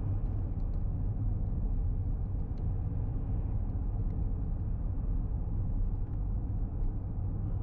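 Steady low rumble of a car driving along a country road, engine and tyre noise heard from inside the cabin, with a few faint light ticks.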